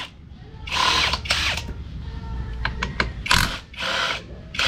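Battery-powered power tool running in several short bursts, loosening the scooter's exhaust bolts.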